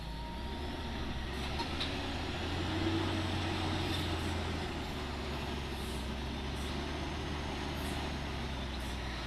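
Mitsubishi Fuso truck's diesel engine running steadily as the heavily loaded truck comes slowly down a steep, narrow dirt descent; a low drone that swells slightly about three seconds in.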